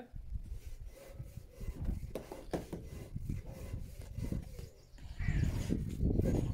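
Bricklaying trowels scraping and spreading mortar on top of a concrete block wall, in irregular strokes with small clicks, louder near the end, over a low rumble.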